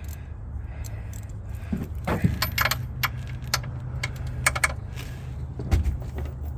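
Irregular metallic clinks and clicks of hand tools, a socket and wrench being worked against a car's oil drain plug, over a steady low hum.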